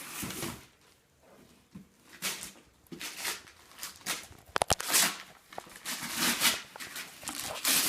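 Wrapping paper and packaging rustling and tearing in a string of short bursts, with a few sharp clicks a little past halfway.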